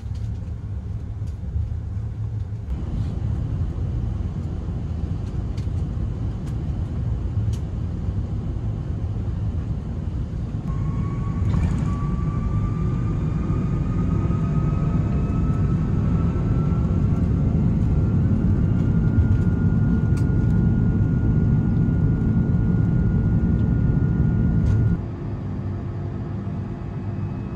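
Airbus A330-300 jet engines heard from inside the cabin during takeoff: a steady rumble with a high whine that rises in pitch from about ten seconds in as the engines spool up, and the rumble grows louder. Near the end the level drops suddenly to a lower, even cabin rumble.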